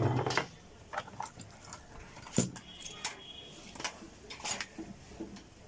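Irregular clicks, knocks and light metallic clinks of small hard parts being handled, a few every second, with one louder knock about two and a half seconds in.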